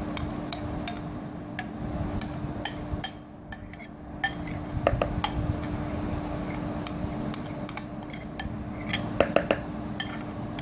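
Metal spoon clinking and scraping against a glass bowl while scooping out thick mayonnaise-and-cream dressing, in scattered sharp taps. A steady low hum runs underneath.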